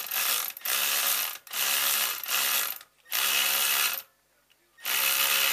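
Rapid mechanical ratchet-like clicking in repeated bursts of about a second each, with short pauses between and a longer pause near the end.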